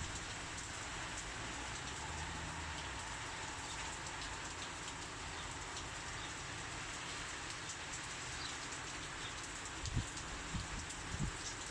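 Heavy rain falling steadily. A few brief low thumps come near the end.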